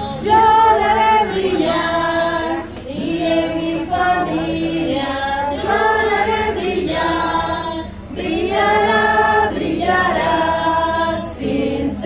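A congregation singing a hymn together, with sung phrases of held notes and short breaks between them.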